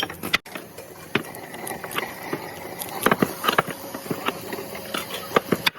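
A rapid, irregular series of sharp knocks and clicks over a steady hiss, cut off abruptly twice.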